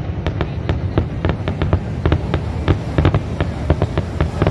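Fireworks show bursting in quick succession: about five sharp bangs a second over a continuous low rumble.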